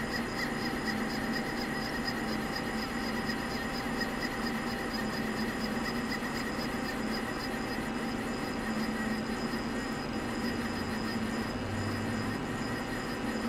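CNC machining center running, its X-axis table driven along its linear guideways by handwheel jog: a steady mechanical hum with a high servo whine, which cuts off near the end as the axis stops.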